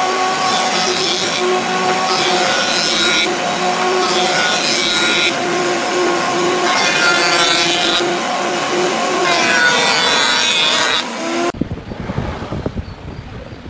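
Jointer running steadily with a constant motor hum, its cutterhead planing a hardwood board in several passes, each pass adding a burst of cutting noise. Near the end the sound cuts off abruptly to something quieter and uneven.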